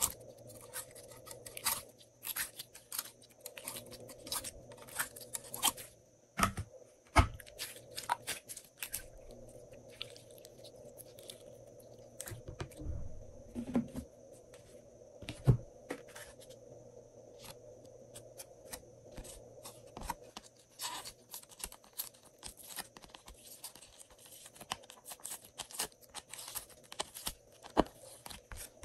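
Glossy slime being pulled out of plastic molds and pressed by hand: a run of many short clicks, with a few louder knocks about six, seven and fifteen seconds in.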